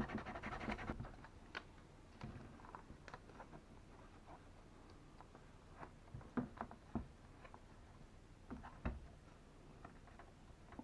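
Hand sanding of a plastic car undertray's broken tab edges: quick scratching strokes for about the first second. After that come scattered faint clicks and scrapes of handling.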